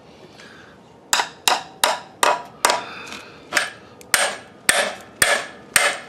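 About ten sharp hammer blows on metal, roughly two a second, each ringing briefly, starting about a second in: a very tight oil pan drain plug being knocked loose.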